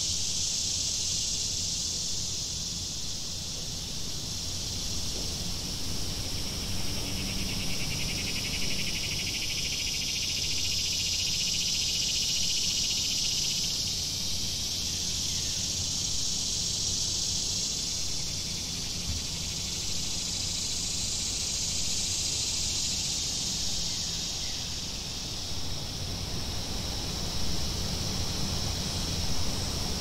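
A chorus of cicadas buzzing continuously in a high, hissing drone that slowly swells and fades, narrowing toward the end, over a steady low rumble.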